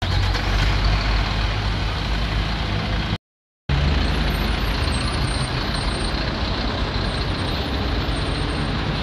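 Large box truck's diesel engine running close by, a steady low rumble; the sound breaks off for half a second about three seconds in, then goes on.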